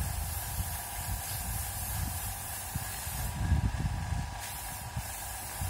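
Compressed-air paint spray gun hissing as paint is sprayed onto a wall, over a steady hum and an uneven low rumble. The hiss stops a little past three seconds in and starts again about a second later.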